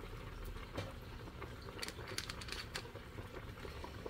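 Pot of noodle soup boiling, a faint bubbling with scattered small pops.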